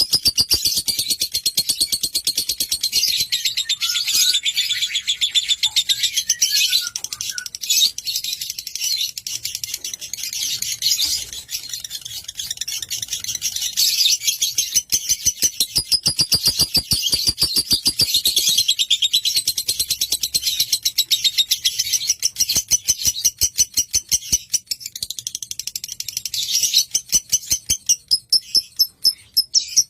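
Lovebird chattering in a long, fast, unbroken run of high, shrill chirps, many each second, with a few brief dips in loudness.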